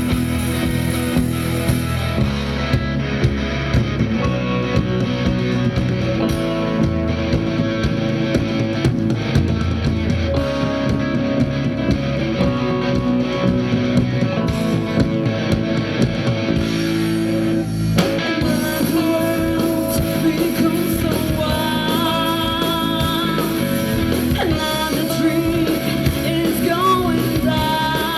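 Rock song played by a band, with guitar and drums. A voice starts singing about two-thirds of the way through.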